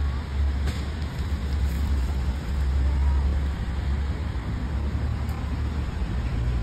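Street background noise: a steady low rumble under a faint hiss, with a small click about a second in.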